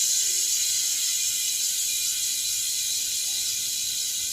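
Freehub of a Litepro 451 bicycle wheel spinning freely, its pawls giving a fast, even ratchet buzz that slowly fades as the wheel coasts down.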